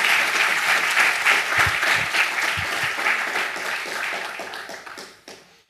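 Audience applauding in dense, steady clapping that tapers off and dies away near the end.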